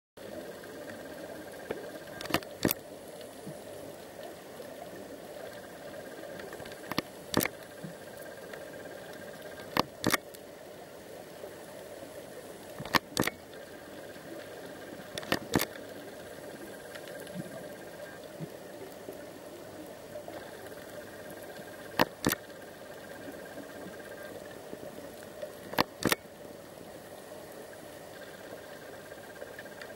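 Underwater ambience picked up by a camera in a waterproof housing: a steady hiss and hum, with sharp clicks, mostly in pairs, every few seconds.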